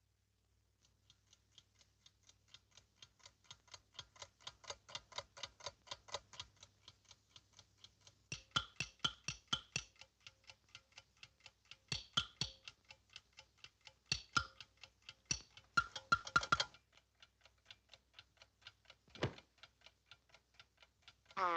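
Rapid, even ticking at about five ticks a second, with louder clusters of clicks in the middle stretch and one lone click near the end.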